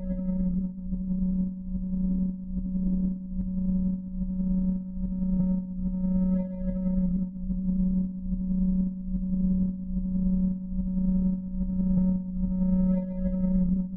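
Electronic drone from the dance score: one low, steady synthesized tone with a few higher overtones. It swells and fades about every second and a half, and its upper overtones brighten now and then.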